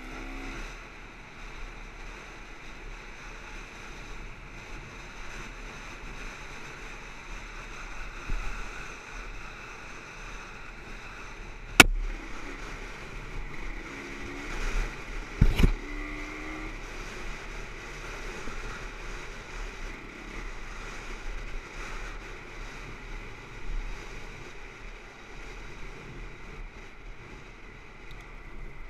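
Dirt bike engine running under way on a dirt trail, mixed with wind rushing over an onboard microphone. A sharp knock about twelve seconds in, and a few more knocks a few seconds later.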